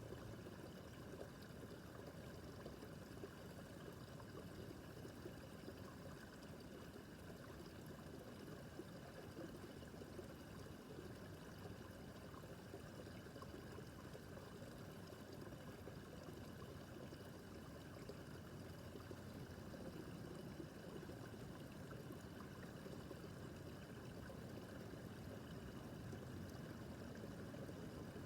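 Shallow brook babbling and trickling over stones in a steady, unbroken flow.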